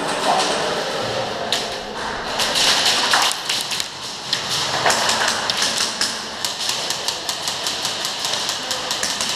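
Airsoft guns firing: a scatter of sharp clicking shots and BB hits that thickens over the last few seconds into a quick, fairly even run of clicks, several a second.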